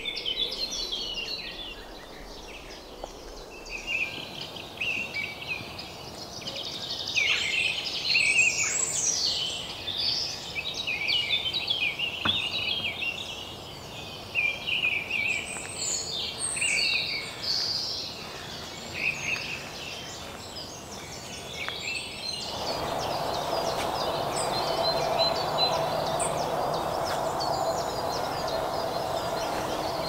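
Many songbirds singing over one another in woodland, a busy stream of short high chirps and trills. About three-quarters of the way in, the birdsong thins and a steady rushing hum takes over.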